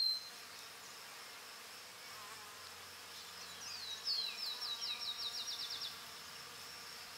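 Faint, steady high-pitched insect buzzing, with a short falling chirp at the start and a quick run of about a dozen falling chirps in the middle.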